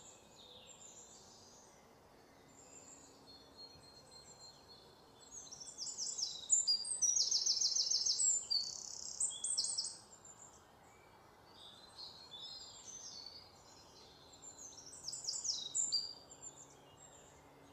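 Small songbirds singing and chirping in the background. The singing is busiest in the middle, with a rapid trill, thins out, and picks up again near the end, over a faint steady outdoor hiss.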